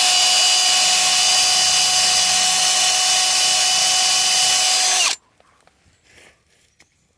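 Power drill running at a steady speed while drilling a small hole through the van's broken boost-hose connection at the intercooler, with a constant whine, stopping abruptly about five seconds in.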